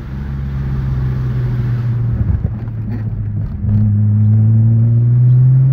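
Car engine and road noise heard from inside the cabin while driving: a steady engine note whose pitch drops about three and a half seconds in, then climbs slowly and grows louder as the car accelerates.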